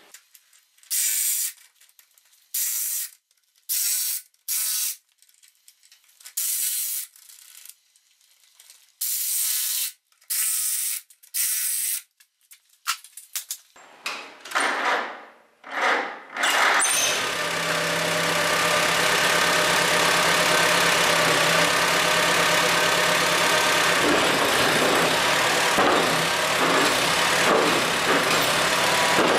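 Short bursts of a wrench tightening the bolts on the tractor wheel's eccentric bodies, about ten strokes with pauses between. Then the Allis-Chalmers D14's four-cylinder engine is cranked, catches about two-thirds of the way in, and idles steadily.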